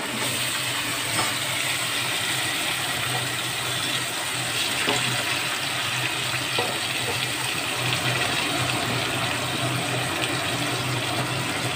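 Potato chunks and prawns frying in hot oil in a non-stick kadai, giving a steady sizzle, while a wooden spatula stirs and turns them.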